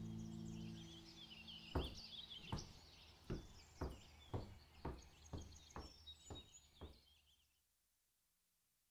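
Footsteps walking away on a hard floor at about two steps a second, slowly growing fainter, with birds chirping in the background.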